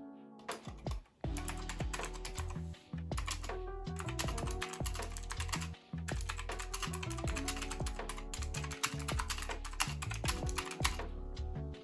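Typing on a Keychron V5 Max mechanical keyboard: quick, irregular keystroke clacks, many a second, over background music.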